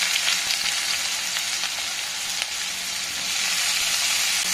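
Freshly added chopped onions and green chillies sizzling in hot oil in a kadhai, a steady frying hiss.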